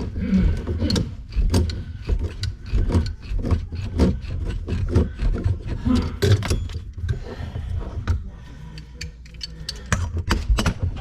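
Irregular clicks, knocks and rubbing of hands and metal fittings as the hot-water supply line is screwed onto its connection under a kitchen sink.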